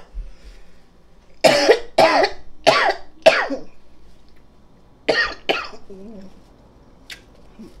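A woman coughing hard: four coughs in quick succession, then two more after a short pause. She is coughing up food that went down the wrong way while eating.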